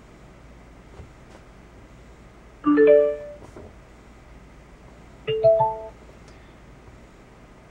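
A UWAYKEY ZK-502L Bluetooth amplifier plays two short rising electronic chimes of a few notes each. The first, about two and a half seconds in, is its power-up tone. The second, a couple of seconds later, is its Bluetooth-connected tone.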